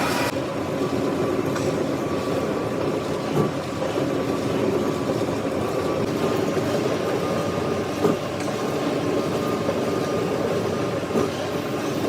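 Metalworking machine running steadily with a low hum and several held tones, with a few short knocks.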